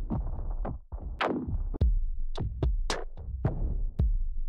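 Cinematic electronic percussion loop being previewed: sharp drum-machine hits with a deep low end in a quick, uneven rhythm, and a falling sweep about a second in.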